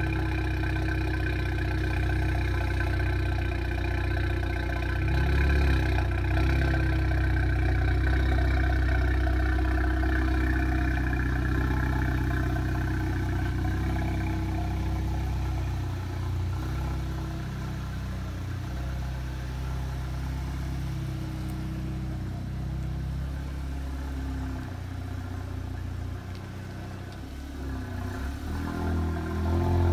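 2016 Audi S3's turbocharged 2.0-litre four-cylinder idling after a cold start, heard through its AWE SwitchPath exhaust with the valves open: a steady low drone. The sound drops a little about halfway through, then rises near the end as the car pulls away.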